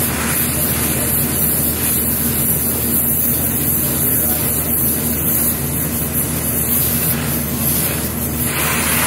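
Oxy-acetylene torch flame hissing steadily as it preheats a thick aluminum plate for welding.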